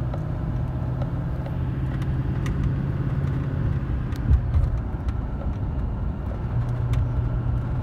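Inside the cab of a 2015 Chevrolet Silverado 3500 with its 6.6-litre Duramax V8 turbodiesel driving at about 2,000 rpm, in third gear as the driver believes, with road rumble. The engine hum is steady, eases for a couple of seconds past the middle, then comes back. There is one thump about four and a half seconds in.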